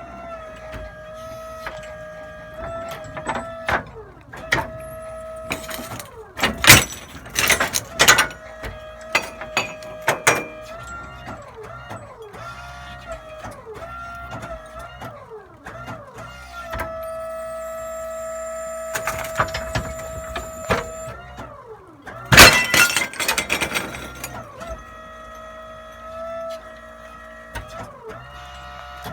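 A dishwashing machine running with a steady whine that shifts and slides in pitch, broken by two spells of loud crashing and clattering of breaking glass, about six seconds in and again near twenty-two seconds.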